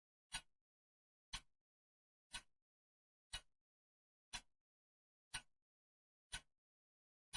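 Clock ticking steadily, one sharp tick each second, with dead silence between the ticks.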